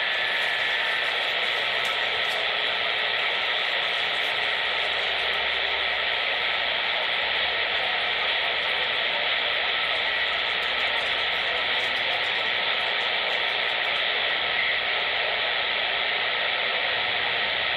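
CB radio receiver static with the squelch open: a steady, even hiss.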